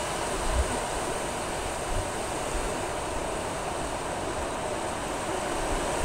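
Steady rushing noise of surf breaking on a sandy beach.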